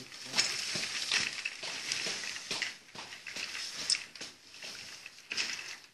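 Plastic baby walker rattling and clicking as it rolls over a concrete floor: a dense clatter of small clicks, strongest in the first couple of seconds, then more scattered.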